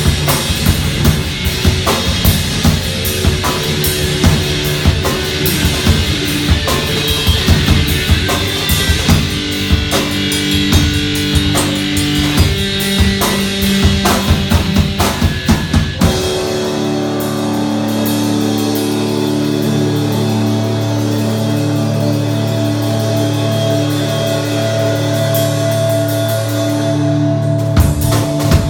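Live heavy rock band playing: drum kit pounding under held guitar and low notes for the first half, then the drums drop out and the held notes ring on alone, with the drums coming back in right at the end.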